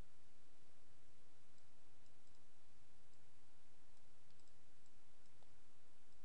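Steady hiss and low hum of the recording background, with a few faint computer mouse clicks, some in pairs.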